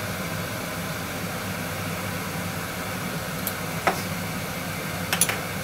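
Steady whooshing hum of kitchen background noise. About four seconds in, a metal spoon is set down with a short clink, and a couple of quick light clicks follow near the end.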